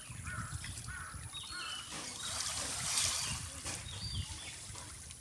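Water sloshing and trickling, loudest about two to three seconds in, with repeated short bird calls.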